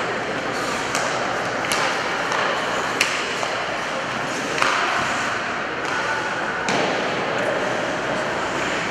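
Ice hockey play in a rink: steady scraping of skates on the ice, with sharp clacks of sticks and puck, a few scattered through and the loudest about halfway.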